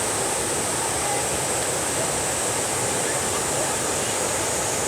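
Small waterfall and river rapids rushing in a steady, unbroken wash of water noise.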